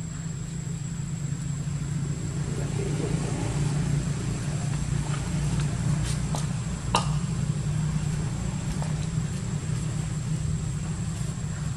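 Steady low engine rumble, like a motor running at idle, with one sharp click about seven seconds in.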